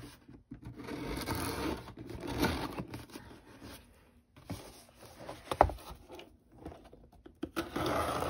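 A blade slitting the tape along the edges of a cardboard box, in several scraping, tearing strokes, with the cardboard shifted and handled. A sharp knock midway is the loudest sound.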